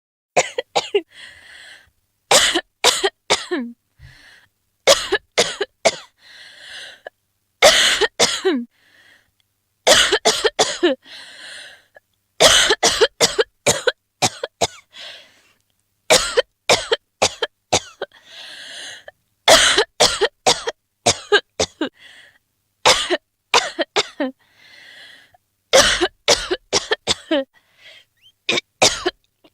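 A woman coughing over and over in quick fits of three to five harsh coughs, each fit followed by a softer, raspy gulping breath, repeating about every two and a half seconds. Some fits end in a short croak that drops in pitch.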